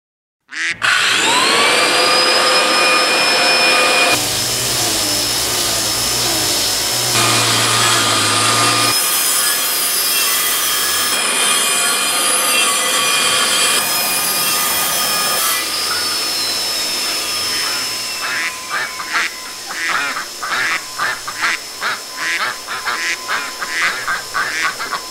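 Power tools running, a circular saw and a string trimmer, with a steady high whine that spins up about a second in and changes as tools start and stop; one winds down partway through. Over the last several seconds ducks quack over them again and again.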